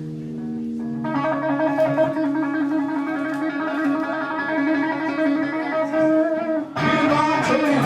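Electric guitar playing solo: a held note, then a fast, wavering trill of notes. Near the end a louder, fuller chord comes in.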